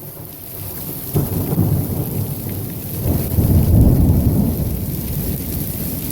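Thunder: a deep rumble that breaks in sharply about a second in, swells to its loudest around the middle and then eases off, over the steady hiss of heavy rain and hail falling.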